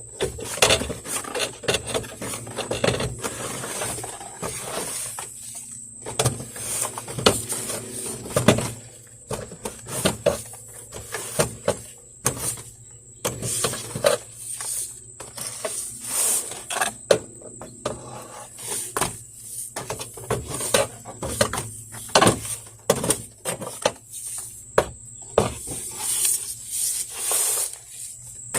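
A gutter tool scraping and scooping wet debris out of a gutter, with irregular scrapes, knocks and clatters.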